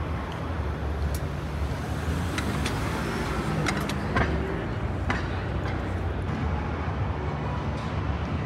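Busy exhibition-hall din: a steady low rumble under background voices, with scattered sharp clicks and knocks, the loudest about four seconds in.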